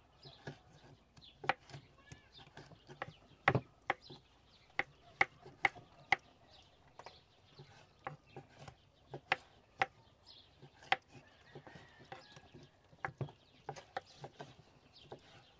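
Kitchen knives chopping on wooden cutting boards as cooked beet and orange are diced into small cubes, giving irregular sharp taps a few times a second.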